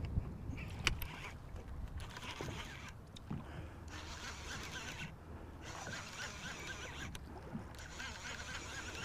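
Fishing reel being cranked in spells of a second or so with short pauses, a fine ticking whir, while a hooked bass is fought. Underneath is a steady low rumble of wind on the microphone, with an odd sharp click.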